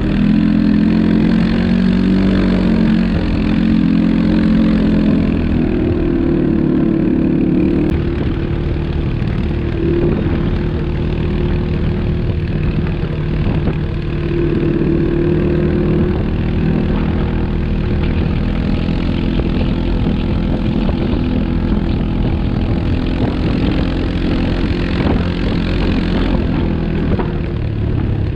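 ATV engine running under way, its note rising and falling with the throttle.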